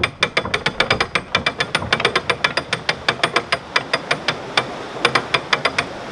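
Canal lock paddle gear being wound up with a windlass: the ratchet pawl clicks rapidly and evenly over the ratchet teeth as the paddle is raised. The clicking stops just before the end.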